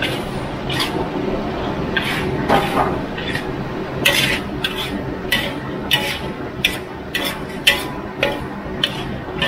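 Metal ladle scraping and clanking against a large wok as a celery and fried sea bass stir-fry is tossed, in irregular strokes about one or two a second, over a steady low hum.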